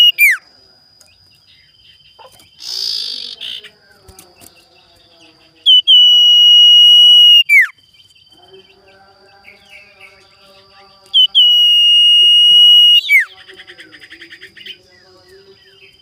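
Common iora (cipow) giving long, level, loud whistles, each ending in a quick downward slur: one tails off at the start, then two more follow about six and eleven seconds in, the last running into a fast rattling trill. A brief scratchy burst comes near three seconds in.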